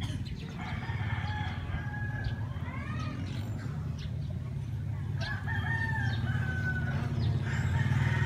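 Roosters crowing, several overlapping crows in turn, each rising and then holding a long note. A low engine hum runs underneath and grows louder near the end.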